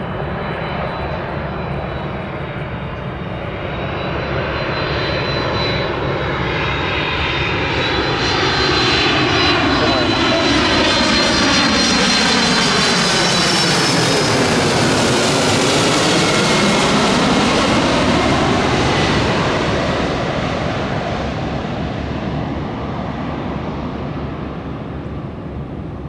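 Twin-engine Amazon Prime Air freighter jet on final approach passing low overhead: the engine noise swells to a peak about halfway through, with a high whine that drops in pitch as it goes by, then fades as the jet descends away.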